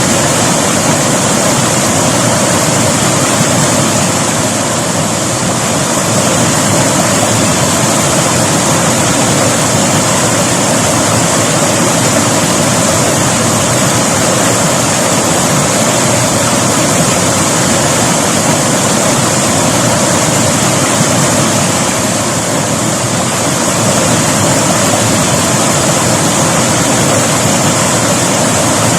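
River water rushing and splashing over rocks in a loud, steady flow.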